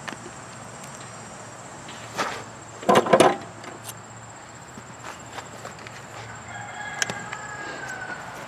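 A worn mower deck blade spindle spun by hand, its bare shaft turning in bad bearings, with two short loud rasping noises about two and three seconds in. A rooster crows faintly near the end.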